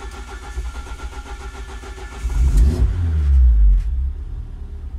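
Ford Focus ST170's 2.0-litre four-cylinder on individual motorcycle throttle bodies cranking evenly on the starter, catching about two seconds in, revving briefly and settling to a steady idle around 1,400 rpm. This is a hot start at about 88 degrees coolant, fired with the pedal held at about 40–50% because the engine is mapped on throttle position alone, with no idle control valve.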